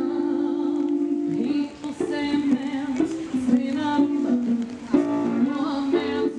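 Music with plucked string instruments and a melody line that slides between long held notes.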